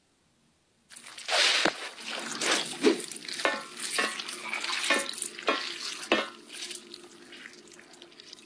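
Gritty scraping and crackling, cut through by sharp knocks about twice a second, starting after a second of silence and slowly fading toward the end.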